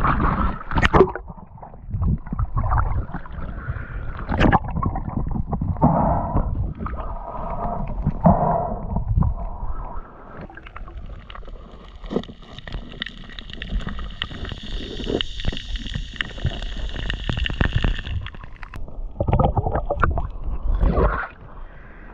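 Water sloshing, gurgling and knocking against a snorkeller's action camera as he swims underwater and breaks the surface, muffled when under. A thin steady high whine runs for several seconds in the middle.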